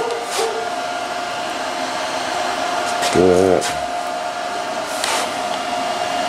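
Steady machine whir with a constant high hum, like an electric motor running in the shop, with a few faint clicks.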